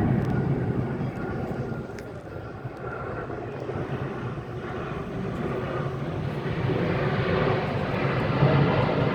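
Jet airliner engines, a steady rumble with a faint whine that swells louder and brighter over the second half as the plane draws closer.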